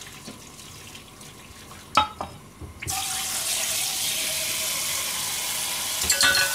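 A kitchen tap turned on about three seconds in, water running steadily into a stainless-steel sink to rinse freshly boiled vegetables. Before it, a single sharp knock of pot or utensil; near the end, a brief rattle of metal.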